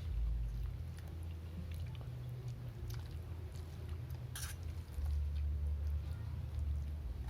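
A person chewing and eating, with small scattered clicks and one sharper click past the middle, over a steady low rumble.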